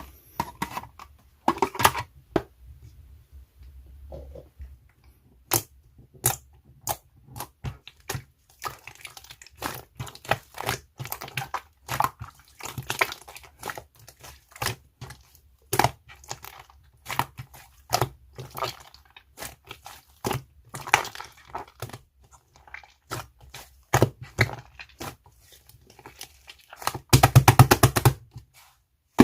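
Slime being squeezed, poked and folded by hand, giving a string of sharp pops and crackles at an uneven pace. Near the end comes a quick run of rapid crackling pops, the loudest part.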